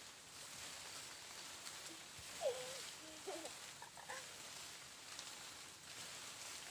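Faint outdoor background hiss, broken from about two to four seconds in by a few short pitched calls, the first of them the loudest.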